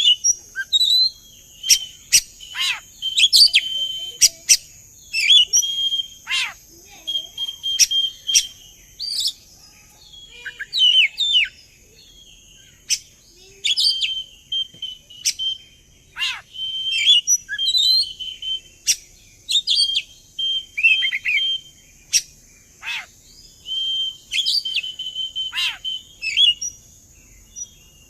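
Oriental magpie-robin (kacer) singing a varied, continuous song of held whistled notes, chatter and sharp downward-sweeping notes, with short pauses between phrases. It is a lure song meant to prompt another kacer to sing back.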